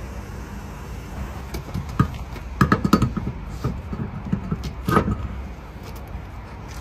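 A run of clunks and knocks as a tyre on a steel wheel is handled and fitted onto a van's hub, some with a short metallic ring, over a steady low rumble.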